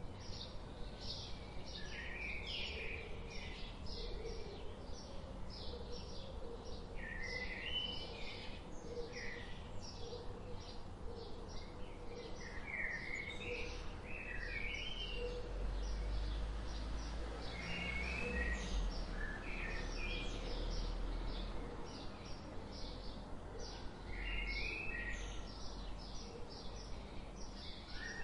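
Forest birdsong: quick short chirps repeating several times a second, with longer chirping phrases from other birds in between. A low rumble swells up in the middle and again briefly near the end.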